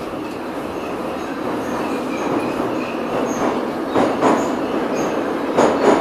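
Running noise of an old Soviet Ezh/Em-type Moscow Metro train heard from inside the car, a steady rumble with a few sharp wheel knocks over rail joints in the second half.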